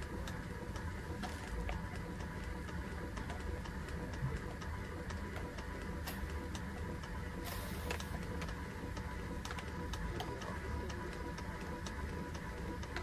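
Solenoid valves of a microcomputer-controlled pneumatic robot arm clicking on and off in quick, irregular succession as they let air in and out of its silicone balloons, with a short hiss of air about halfway through, over a steady low hum.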